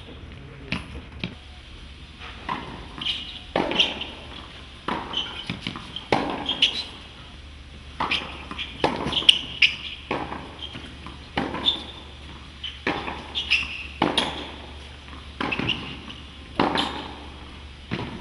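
Tennis rally on a hard court: sharp racquet strikes on the ball and ball bounces on the court, one about every half second to second and a half.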